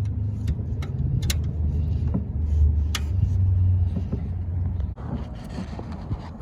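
A low vehicle rumble that drops away about five seconds in, with a few sharp clicks and knocks from a wrench working at a stuck oil drain bolt.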